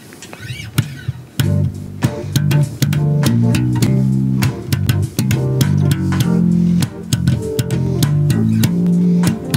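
Solo four-string electric bass guitar played, coming in loud about a second and a half in: a run of plucked notes with sharp clicks of the strings.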